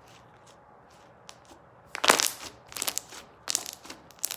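Pink slime being folded and pressed down by hand, giving runs of sharp crackling pops as the trapped air pockets burst: the slime "crack" test. The crackling starts about halfway through, loudest in the first burst, then comes in several more bunches.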